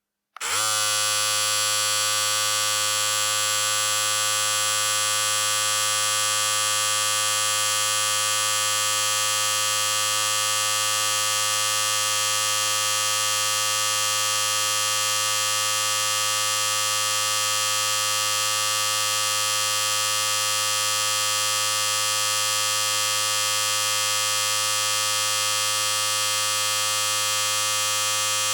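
Electric hair clippers switched on, the motor starting abruptly and then running at a steady, unchanging buzz with a low hum and a bright, high-pitched whine.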